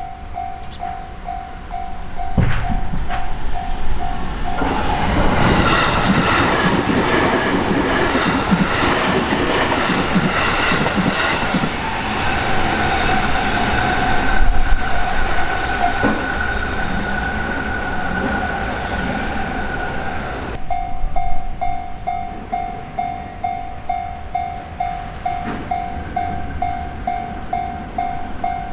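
Japanese railroad crossing's electronic warning bell ringing at about two strokes a second. About four seconds in, an electric train passes through the crossing with a loud rush of wheel-on-rail noise for about sixteen seconds that drowns the bell, and a steady whine runs through the second half of the pass. After the train has gone, the bell rings out clearly again.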